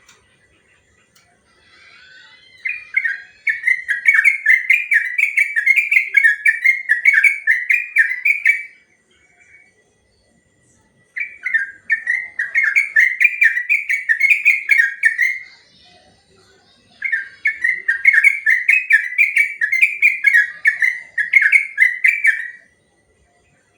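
Yellow-vented bulbul (trucukan) singing its long, rapid song: three runs of quickly repeated chirping whistled notes, each lasting four to six seconds, with short pauses between them.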